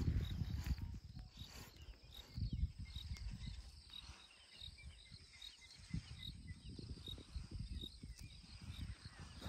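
Outdoor bush ambience: an insect chirping in a steady run of short high notes, about two a second, over low rustling and dull thumps that are loudest at the very start and again about two and a half seconds in.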